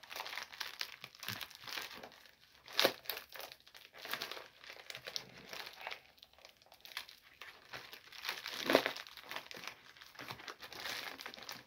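Packaging crinkling and crumpling as a mail package is opened by hand, irregular rustling with two louder crackles about three and nine seconds in.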